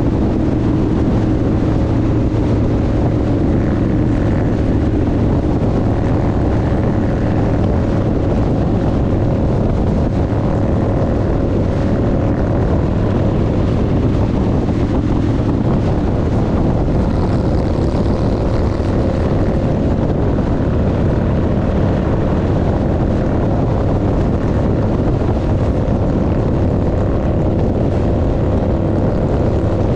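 Harley-Davidson V-twin motorcycle engine cruising steadily at freeway speed, heard from the rider's own bike with heavy wind and road noise over the engine's low drone.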